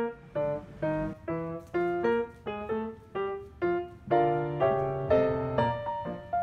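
Background music: a keyboard melody of short, separate notes, each fading away, about two or three a second.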